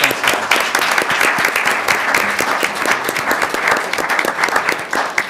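Audience applauding with many sharp hand claps, dying away near the end.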